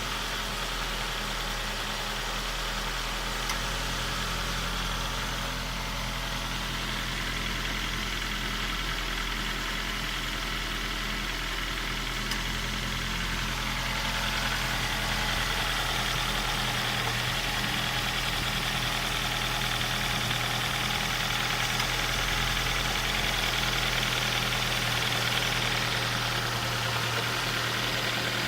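Ford Focus Mk1 1.6-litre four-cylinder petrol engine idling steadily after start-up, with the clicking noise that appears once the engine has started. It gets slightly louder about halfway through.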